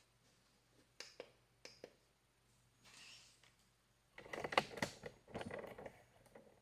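Handling noise: a few light clicks, then from about four seconds in a stretch of rustling and knocks as the hat is handled and put on.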